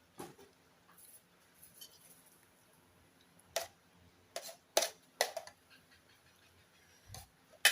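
Meal-table eating noises: a handful of short clicks and knocks of utensils and dishes, most bunched between about three and a half and five and a half seconds in, with the loudest near the end.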